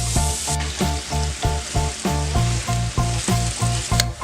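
Broccoli sizzling steadily as it is sautéed in a wok over high heat, with background music with a steady beat playing over it.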